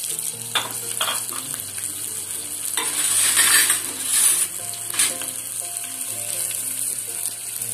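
Chopped ginger, green chilli and Kashmiri red chilli sizzling in hot oil in a small steel tempering ladle, with a metal spoon stirring and clicking against the ladle. The sizzle swells about three seconds in.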